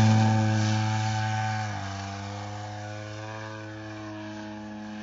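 DLE 55cc single-cylinder two-stroke petrol engine of a 2.2 m Sbach 342 RC aerobatic plane at high throttle, climbing away steeply after takeoff. Its steady buzz fades as it recedes and dips slightly in pitch about two seconds in.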